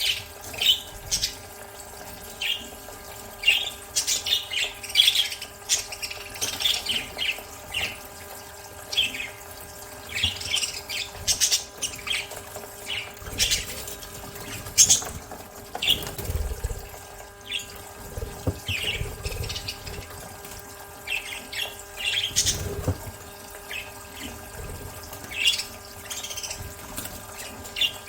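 Budgerigars chirping and chattering in quick short calls while bathing, with water splashing and wing flapping in a few spots. A faint steady hum runs underneath.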